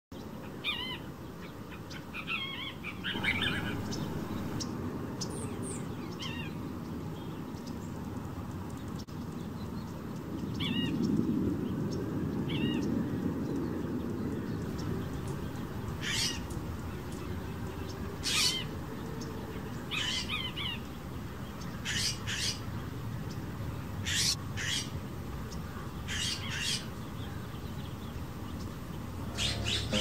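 Small birds chirp in the first half. From about halfway, a California Scrub-Jay gives about ten short harsh calls, spaced a second or two apart.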